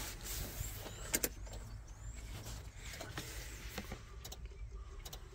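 Ford Transit 2.0 TDCi diesel failing to start on a jump starter: a couple of sharp clicks about a second in, over a faint low electric whirr, and the engine does not catch. The booster's ground clamp is connected too poorly.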